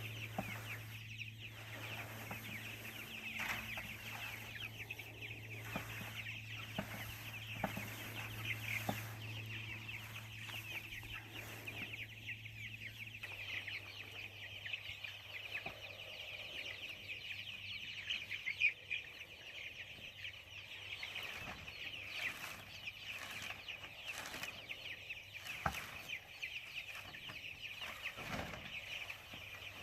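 A flock of chickens cheeping and clucking continuously, with a few sharp knocks. A low steady hum stops about 13 seconds in.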